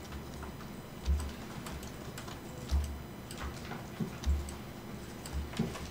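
Irregular light clicking of a computer mouse and keyboard, with four dull low thumps spread through it.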